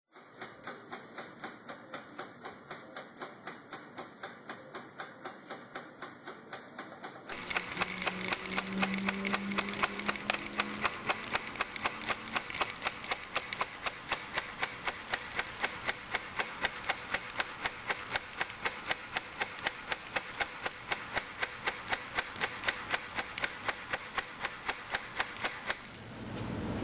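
Model coal train layout running, with a steady clicking of several clicks a second. About seven seconds in the running gets louder, and a low hum is added for a few seconds.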